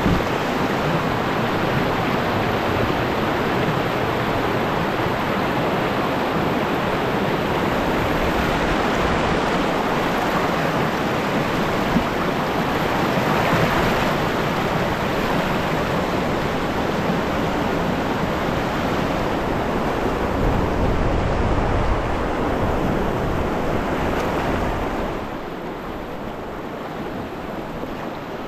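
Whitewater rapids rushing over boulders around a canoe, a loud steady rush of water. It quietens a few seconds before the end as the canoe reaches calmer water.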